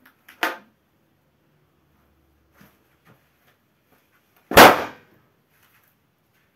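Latex balloon bursting with one loud bang about four and a half seconds in as a bare foot stomps down on it. A shorter, quieter sharp sound comes just under half a second in.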